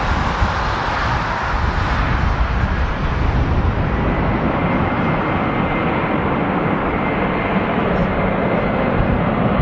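Boeing 767 airliner's jet engines running as it rolls along the runway: a steady jet rush with a faint high whine for a few seconds in the middle.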